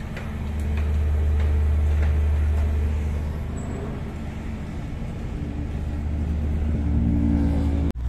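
The power unit of a hydraulic static pile driver running with a steady low hum. A few faint clicks come in the first two seconds, and a slightly higher hum builds up toward the end.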